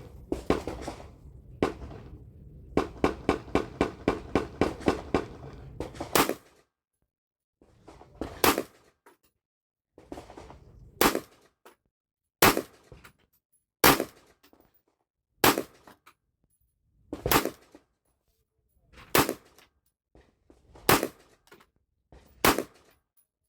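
A series of sharp clicks: first a quick run of about four a second over a low rumble, then single loud, sharp clicks roughly every one and a half seconds.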